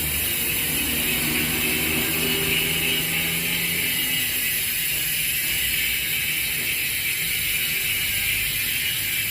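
Freewheeling bicycle rear hub, a budget Cole hub with four pawls, giving a steady, rapid ratcheting buzz as the wheel coasts.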